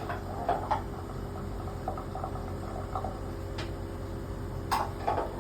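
A few light knocks and clicks of hard objects: two about half a second in, one more a little past halfway, and a pair near the end. A steady low hum runs under them.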